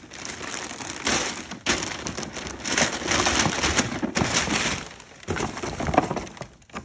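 Gift wrapping paper being ripped and crumpled off a large cardboard box in quick, uneven tears, followed by the box's cardboard flaps being pulled open.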